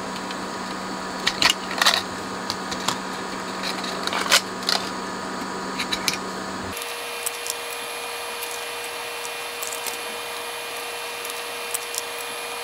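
Small clicks and taps of fingers working a BBD chip out of and into its IC socket on a circuit board, over a steady electrical hum that shifts to a higher pitch about halfway through.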